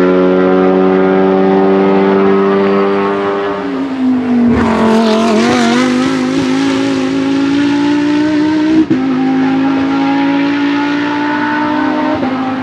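Honda Civic Type R TCR race car's turbocharged 2-litre four-cylinder engine running hard on track, its note slowly rising in pitch. A sudden louder, rougher surge comes about four and a half seconds in, and the sound cuts out briefly near nine seconds before the rising note resumes.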